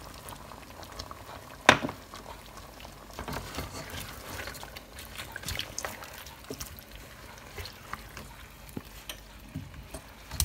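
A single sharp knock about two seconds in, then a spatula stirring chicken pieces in a thick sauce in a nonstick pot, with scattered soft scrapes and clicks.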